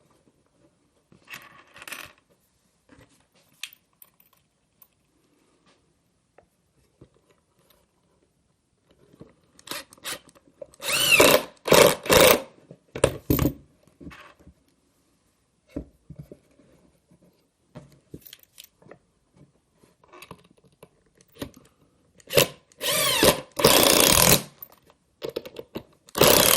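Power drill with a Phillips bit driving screws into the wooden top of a nest box, running in short whirring spurts that speed up and slow down: one cluster a little under halfway through and another near the end. Light knocks of wood being handled between them.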